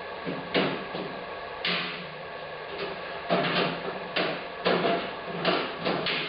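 A shelf on a metal shelving unit being knocked loose and moved up a notch in its uprights. It makes about a dozen irregular knocks and clanks, some with a short metallic ring.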